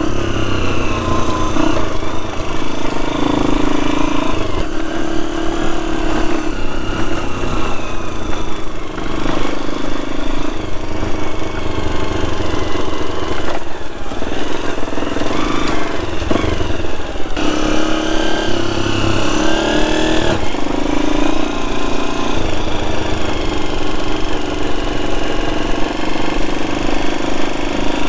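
Farm bike engine running at low speed, its pitch rising and falling as the throttle is opened and eased off, with a sharper rev about twenty seconds in.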